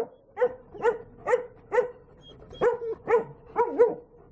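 Black German Shepherds barking: a run of short, sharp barks about two a second, a brief pause about two seconds in, then a quicker run of barks.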